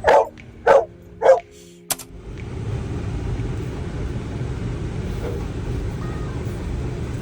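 A dog barks three times, about half a second apart. About two seconds in, the sound cuts abruptly to a steady low rumble.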